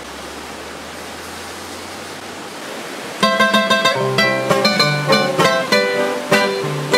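A steady hiss of background noise. About three seconds in, two acoustic guitars start the intro of a corrido: a quick picked melody over lower bass notes.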